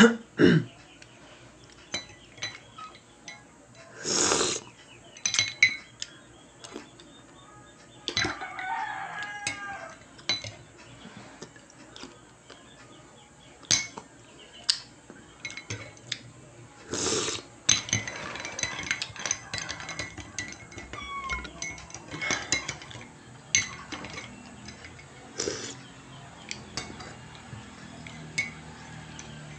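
Metal teaspoon clinking and scraping against a ceramic mug in scattered light taps as a drink is stirred and spooned. Two louder, short noisy bursts come about four and seventeen seconds in.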